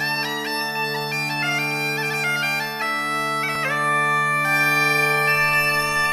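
Bagpipes playing a tune: a melody stepping up and down over a steady, unbroken drone.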